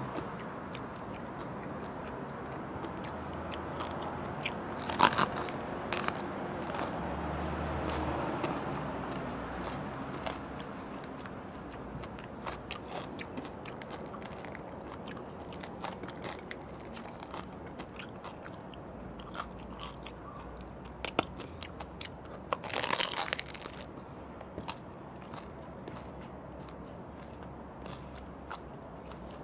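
Biting and chewing crispy fried pork knuckle (crispy pata): crackling crunches of the fried skin, loudest about 5 s in and again around 23 s.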